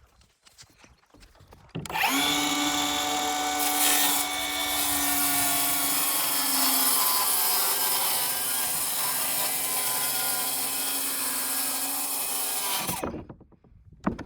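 Circular saw cutting a tongue-and-groove subfloor sheathing panel in half: the motor starts about two seconds in, runs through the cut with a steady whine for about eleven seconds, and stops abruptly near the end.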